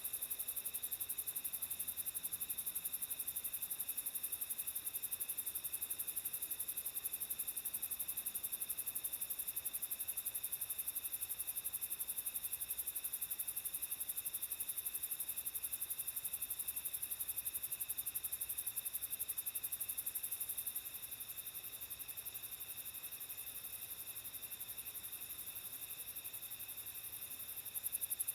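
Chorus of crickets trilling steadily at night in a fast, even pulse, with several high pitches layered together. About two-thirds of the way through the chorus eases off for several seconds, then comes back up just before the end.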